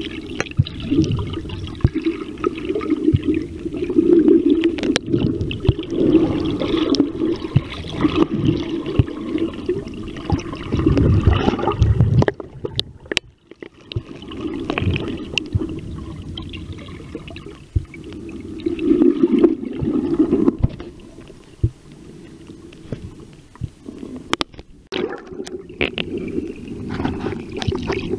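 Muffled underwater sloshing and gurgling picked up by a submerged camera moving over the shallow seabed, with scattered knocks and clicks. The noise swells and fades, with a brief drop-out near the middle.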